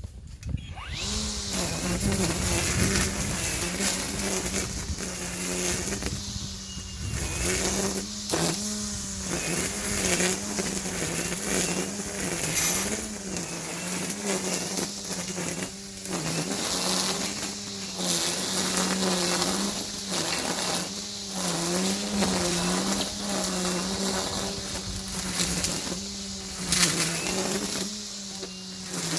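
EGO 56-volt battery-powered string trimmer starting up about a second in, then running with a steady whine as its line cuts through tall weeds. The pitch dips briefly over and over as the motor bogs under load, amid the rapid slap and rustle of the line striking stems.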